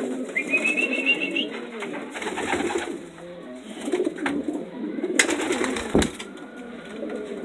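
Homing pigeons cooing in a loft, a steady murmur of low warbling calls. A short high chirp sounds about half a second in, and two sharp knocks come about five and six seconds in.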